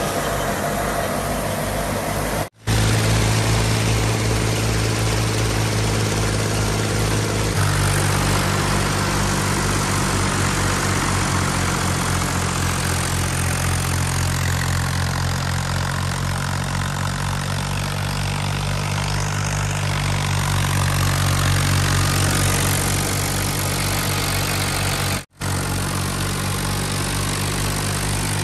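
Fiat 480 tractor's diesel engine running steadily under load while driving a wheat thresher, with the thresher's noise mixed over the engine's pulsing note. The engine note steps up in pitch about eight seconds in, and the sound drops out for an instant twice.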